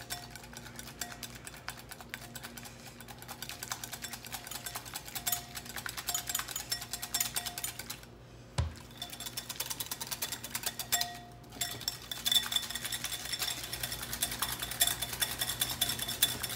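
Wire whisk beating mayonnaise in a glass bowl: fast, continuous clinking and scraping of the wires against the glass, with two short pauses, the first about eight seconds in. Egg yolk and peanut oil are being emulsified by hand as the oil is added.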